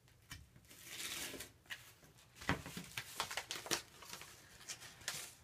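Paper mailing envelope being cut open and handled, its paper rustling and crinkling, with a few short sharp taps and clicks from about halfway through.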